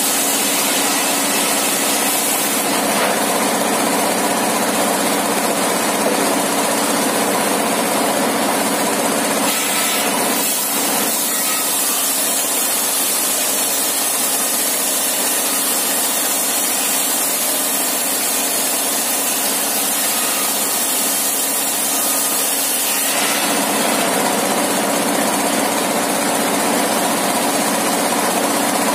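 Engine-driven circular saw bench running steadily while its blade rips a long timber plank lengthwise into boards, the engine's even drone under the high hiss of the cut.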